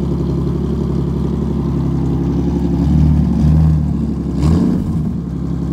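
Ford Explorer Sport Trac's 4.0-litre V6 idling through a new exhaust of short-tube headers, a catted X-pipe and dual Magnaflow race mufflers. It is revved twice in short pulls about three seconds in, then blipped once more before settling back to idle, with a low tone and no rasp.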